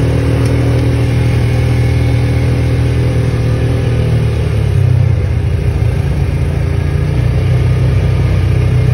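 Side-by-side UTV engine running steadily at moderate speed, heard from inside the open cab with road and wind noise. Its note drops a little about halfway through as the throttle eases.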